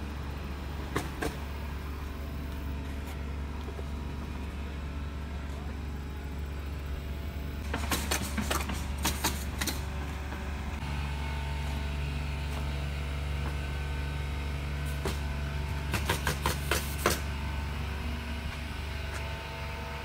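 Steady low drone of a car's engine and road noise heard from inside the cabin while driving, with two short runs of sharp clicks or rattles, one about eight seconds in and one about sixteen seconds in.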